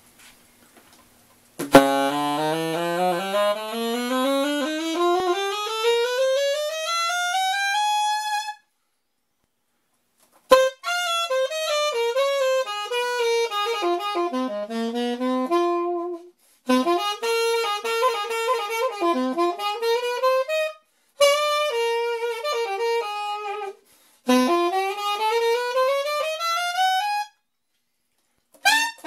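A 1924 Buescher alto saxophone played solo, improvised noodling: a long rising run of notes from low in the horn's range up high, then four shorter phrases with brief pauses between them. It shows the horn in working, playable order.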